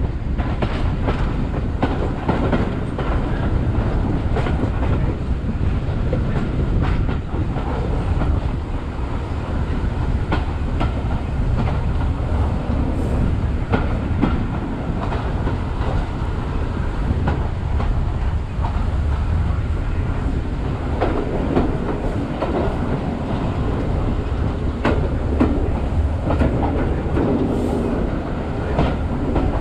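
Heritage train riding on the line: a steady low rumble from the running gear, with the clickety-clack of the wheels clicking over rail joints.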